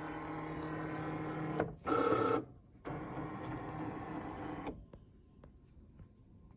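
Electronic craft cutting machine's motors running as its rollers draw the cutting mat in after the load button is pressed: a steady whir, a brief louder whir about two seconds in, then a second steady run that stops shortly before the end.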